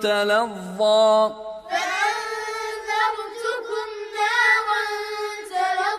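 Quran recitation: a man's chanting voice draws out the last word of a verse, then a child's much higher voice chants the same verse back.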